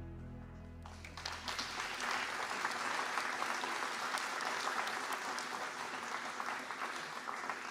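Music ends on held notes and an audience breaks into applause about a second in; the clapping carries on and starts to thin near the end.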